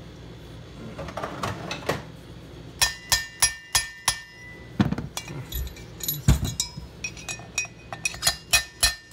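A steel rod clinking and tapping against a Harley-Davidson Shovelhead aluminium cylinder head at its valve guide. It is a run of sharp metallic clinks that ring briefly, starting about three seconds in, with two dull knocks in the middle.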